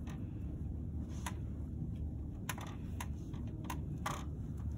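Scattered light clicks and crackles from gloved hands pulling at a dissection cat's skin and muscle, over a steady low hum.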